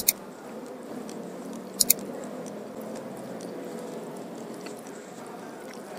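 Close-up chewing and mouth sounds of someone eating rice and curried tawes fish by hand. Two pairs of sharp clicks, one at the very start and one about two seconds in, stand out as the loudest sounds.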